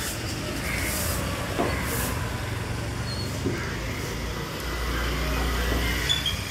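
A motor vehicle's engine running with a low, steady rumble, with a few short hisses in the first two seconds.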